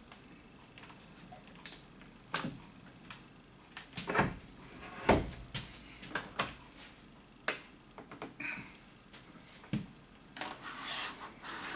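Irregular knocks and clicks of hard objects being handled and set down, about a dozen spread out, with a longer scraping rustle near the end.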